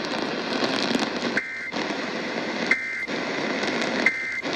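Three short two-tone data bursts about 1.3 s apart, the EAS end-of-message code, received on a weather radio over steady radio static. The static drops out during each burst. The bursts mark the end of the severe thunderstorm warning broadcast.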